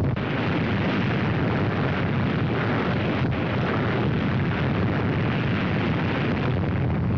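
Sound of a large explosion: a dense, steady rumble with no single bang, holding an even level throughout.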